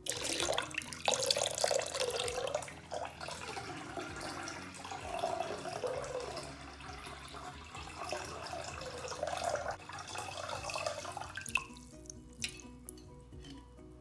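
Cold water poured from a carafe into a stainless-steel Thermomix mixing bowl: a steady splashing pour that stops near the end, followed by a few drips.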